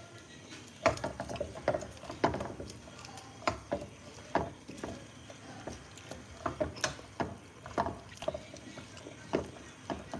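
Kitchen tongs clacking and knocking against a nonstick skillet while tossing chicken and spinach in sauce: irregular sharp clicks, about one or two a second, starting about a second in.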